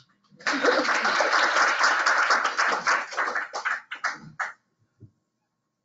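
Audience applauding: a burst of many hands clapping that starts about half a second in, thins to a few last claps after about three and a half seconds, and stops about a second later.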